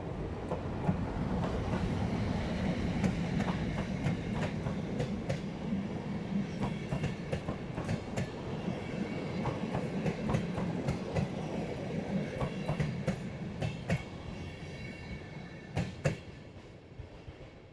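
An EP07 electric locomotive and its train of passenger coaches passing close by: a steady rumble with the clickety-clack of wheels over rail joints, fading toward the end, with a couple of sharp clacks as the last coach goes by.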